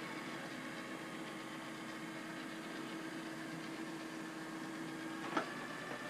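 Trifo Max robot vacuum running with a steady hum as it drives itself back to its charging dock. About five seconds in, the hum stops with a click as it docks.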